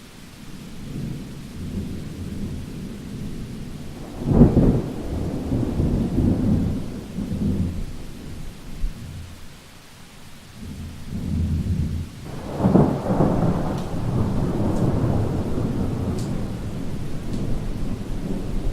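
Deep rumbling noise that swells into two long, loud peals about four and twelve seconds in, over a steady hiss.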